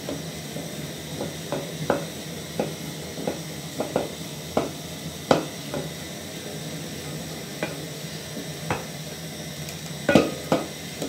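A wooden spoon stirring thick millet porridge in an aluminium pot, knocking against the pot's sides in irregular taps about once a second. A louder pair of knocks comes near the end.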